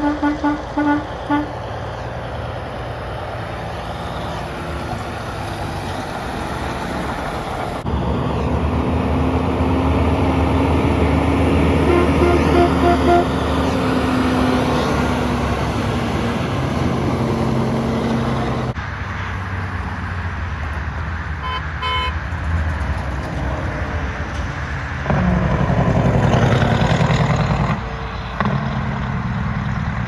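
Semi-truck horn giving a quick string of short toots in the first second or so. Then diesel semi trucks pull past close by, the engine and tyre noise building to its loudest a few seconds in. Another truck surges past near the end, cutting off suddenly.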